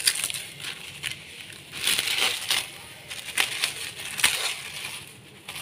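Plastic cling film crinkling and crackling in irregular bursts as a gloved hand peels it off a glass bowl, loudest about two seconds in.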